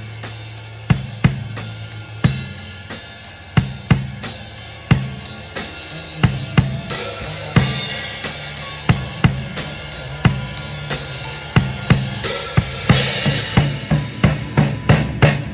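Drum kit played during a band's sound check: kick and snare hits with hi-hat and cymbals, low notes ringing under them, a cymbal crash about twelve seconds in, and quicker hits near the end.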